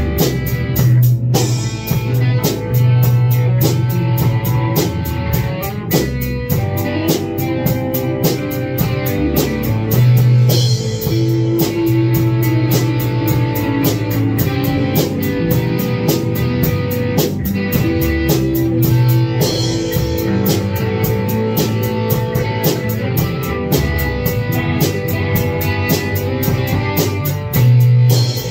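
Rock band jamming without vocals: two electric guitars playing over a drum kit that keeps a steady beat.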